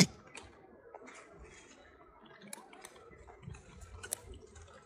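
Faint scattered small clicks and ticks over a low rumble, with one sharp click right at the start.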